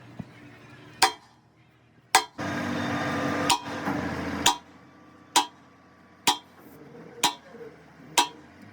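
Hammer striking metal in steady blows, about one a second, eight in all. A harsh hissing noise runs for about two seconds in the middle.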